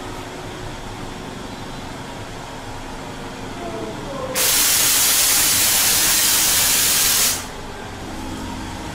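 A sudden loud hiss of compressed air from a haunted-house scare effect, held for about three seconds and then cut off, over a steady low hum.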